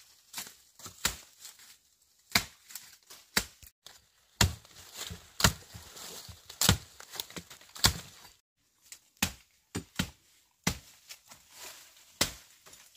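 A blade chopping: a series of sharp strikes, about fifteen, at uneven intervals with short pauses between them.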